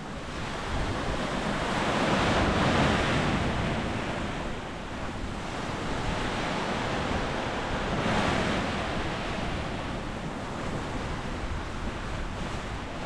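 Small sea waves breaking and washing up onto the shore. The surf swells twice, about two seconds in and again about eight seconds in, over low wind buffeting on the microphone.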